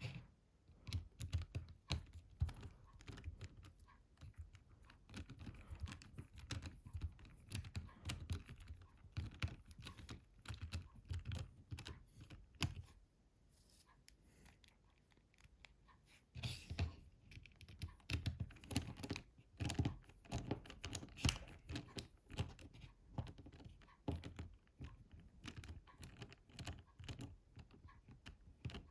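Small screws being driven into a mobile phone's plastic housing with a small screwdriver. Its tip and the phone's parts make dense, irregular clicks and taps, with a quieter pause of about three seconds near the middle.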